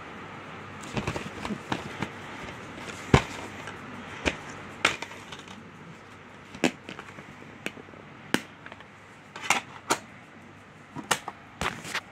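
Plastic DVD case being handled: a string of sharp clicks and snaps as the case is opened and the disc is worked off its centre hub, the loudest snap about three seconds in, over a steady background hiss.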